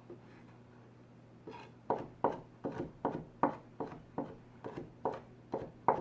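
Knife chopping cucumber on a cutting board: a quick, regular run of sharp knocks, about two to three a second, starting about a second and a half in.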